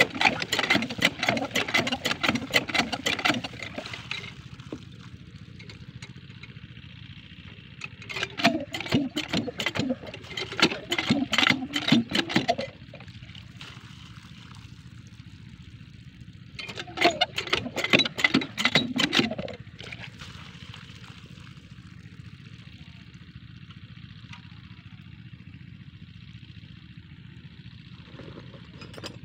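Small single-cylinder diesel engine running steadily beside a water pump, with three louder spells of splashing water, the first a few seconds long, as water is poured into the pump to prime it.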